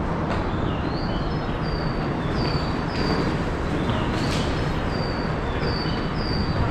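Train station ambience: a steady low rumble, with a series of short, high, slightly falling chirps repeating every half second or so over it.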